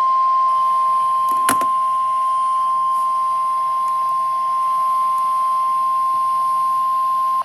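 NOAA Weather Radio 1050 Hz warning alarm tone, one steady high-pitched tone held for about seven seconds that stops abruptly. It signals that a warning message, here a severe thunderstorm warning, is about to be read. A brief click sounds about a second and a half in.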